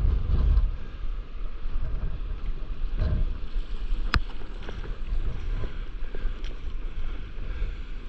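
Wind rumbling on the microphone over sea water, with splashes from a stand-up paddleboard paddle stroking through the water. One sharp click sounds a little after four seconds.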